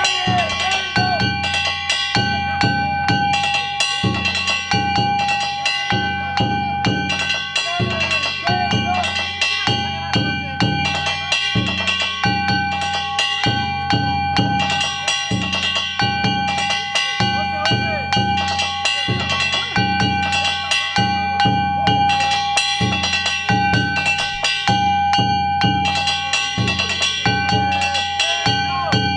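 Danjiri festival music: drums beaten in a fast, steady rhythm with metallic gongs clanging, and a sustained high tone that breaks off and resumes over the percussion.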